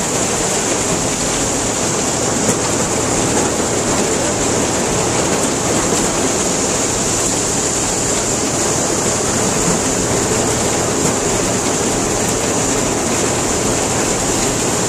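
Corn grinder running steadily, blowing ground corn and cob through its spout pipe into a wooden wagon box: a loud, unbroken rushing noise, with a Farmall tractor running close by.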